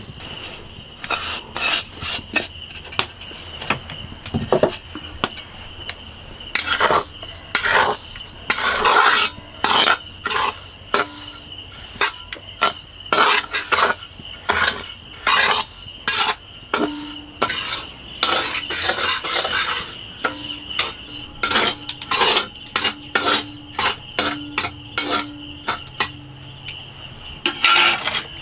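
Metal spatula scraping and stirring dry white granules around in a black iron kadai, in quick irregular strokes. A steady high-pitched whine runs underneath.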